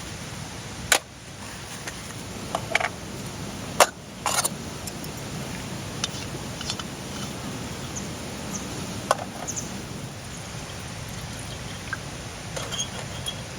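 Small camp cookware handled: a handful of sharp clinks and knocks, spaced irregularly, over a steady rushing background noise.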